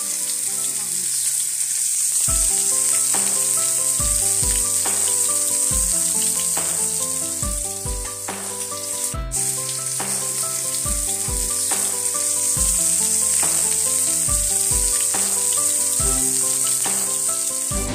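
Fish frying in oil in a pan, a steady high sizzle, mixed with background music that has a melody and a regular kick-drum beat.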